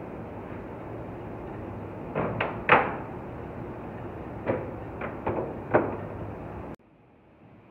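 A run of sharp knocks and clunks of hard objects being handled, about seven in all, in two clusters, over a steady background hum. The loudest comes near three seconds in, and everything cuts off abruptly near the end.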